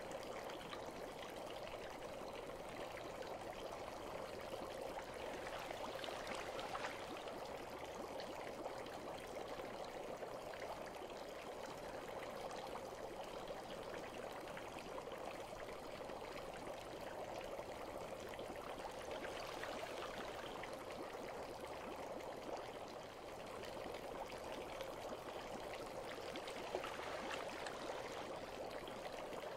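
Steady trickle of running water, as in a bath ambience, going on evenly with a few slightly louder swells.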